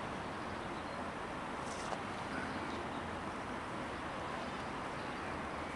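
Steady hum of distant city traffic, with a brief faint high hiss about two seconds in.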